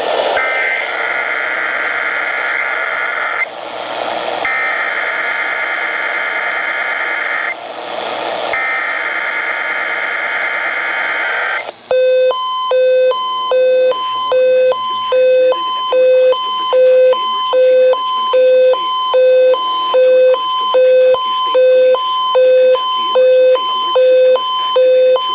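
Emergency Alert System activation for a Child Abduction Emergency, received over AM radio. Three long bursts of warbling data tones (the SAME header) come first, then a beeping attention tone that pulses on and off a little faster than once a second.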